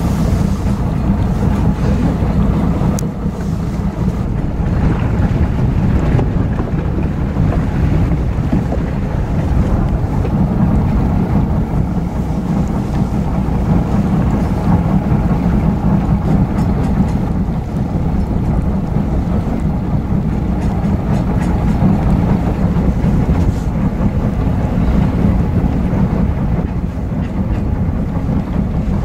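A boat's engine running steadily with a low rumble, with wind buffeting the microphone.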